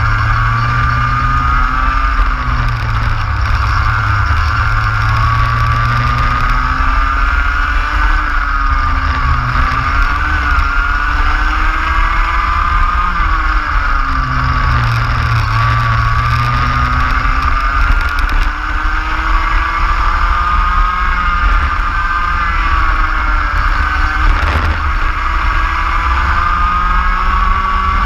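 Racing kart engine heard onboard at full race pace, its pitch rising along the straights and falling back several times for corners, with a long climb over the last ten seconds. A steady low rumble runs underneath.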